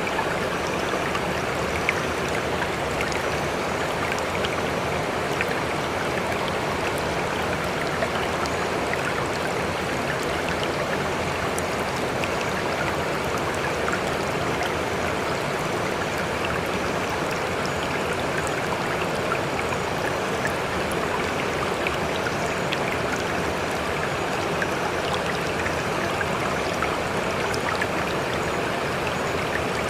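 Flowing water rushing steadily, with faint small splashes scattered through it.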